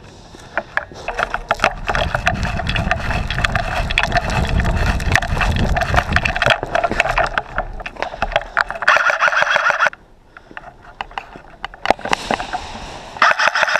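Airsoft guns firing during close-quarters play: rapid sharp clicks and shots over a clatter of movement and gear, with a full-auto burst of about a second around nine seconds in and another starting near the end.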